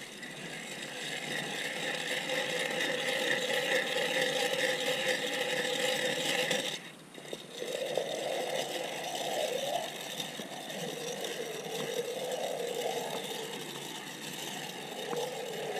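A hand-cranked ice auger drilling into lake ice, its spiral blades grinding steadily as it is turned. The grinding stops briefly about seven seconds in, then resumes less evenly.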